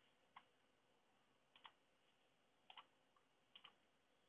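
Faint computer mouse clicks over near silence: a handful of short clicks, several in quick pairs, about a second apart.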